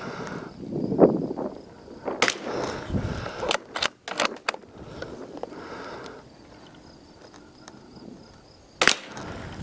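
Savage Mk II rimfire bolt-action rifle fired once, about a second in, followed by a run of sharp mechanical clicks and another click near the end.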